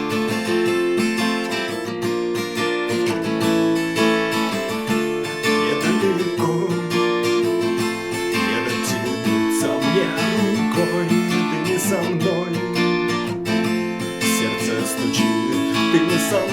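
Acoustic guitar strumming chords in a steady rhythm: the instrumental intro of a song.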